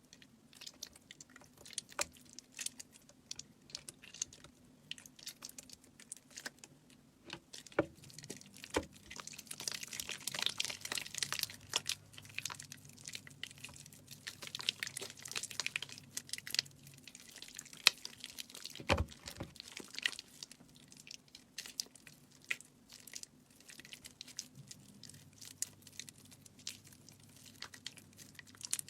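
Soaked bars of soap being squeezed and crushed by hand: a run of wet crunching and crackling with many small sharp clicks, densest about ten and fifteen seconds in, and one heavier thump about nineteen seconds in.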